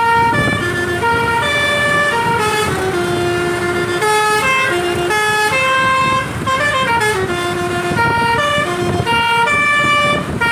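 Basuri telolet multi-tone bus horn playing a long melody of stepped notes, several a second, with a few notes sliding in pitch.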